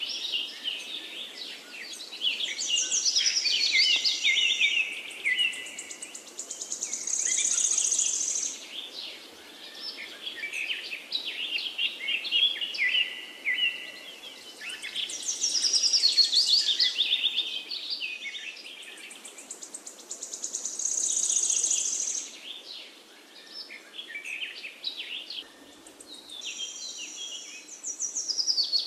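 Birdsong: high chirps and trills in bouts of a few seconds, fading between bouts.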